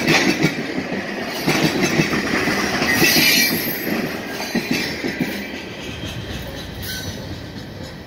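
Steel wheels of empty tank cars and a covered hopper clattering over the rails at a grade crossing as the tail end of a freight train rolls by, with rapid irregular clicks and knocks. The clatter is loudest about three seconds in, then fades away as the last car moves off.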